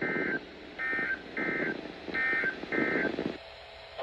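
NOAA Weather Radio EAS end-of-message (SAME EOM) data bursts: short, raspy two-tone digital bursts that come in pairs about half a second apart and recur roughly every second and a half, over radio static.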